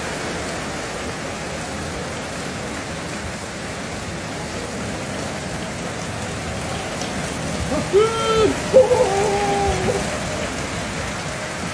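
Steady applause from a large arena crowd, an even rain-like patter. About eight seconds in, a man's drawn-out call rises over it for a couple of seconds.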